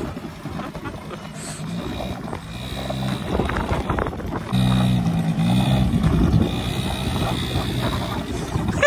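Quad bike (ATV) engine running and revving as the quad pulls away, getting louder about four and a half seconds in.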